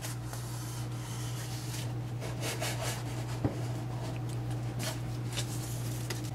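Cardboard rubbing and rustling against hands and a wooden table as a transmission cluster gear is tipped onto its side, with one light knock about halfway through. A steady low hum runs underneath.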